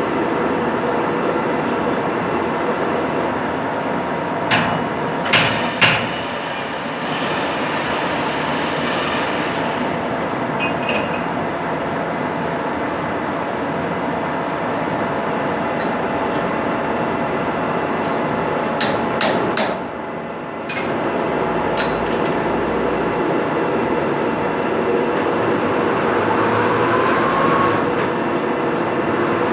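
Metalworking machine tool running steadily in a machine shop, with a few sharp metal clinks in two short clusters and a rising whine near the end.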